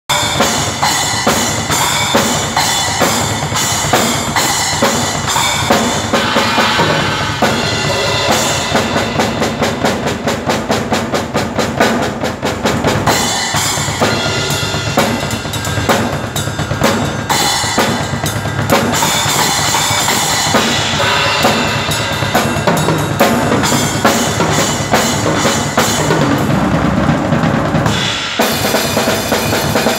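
Full acoustic drum kit played hard: kick drum, snare and cymbals in a driving groove, with a passage of very fast, dense strokes about a third of the way in. Near the end the cymbals drop out briefly under a drum fill, then the full kit comes back in.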